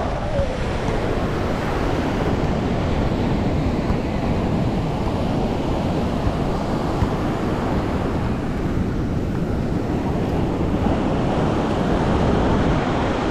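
Ocean surf washing on a sandy beach, a steady rushing sound, with wind buffeting the microphone and adding a low rumble.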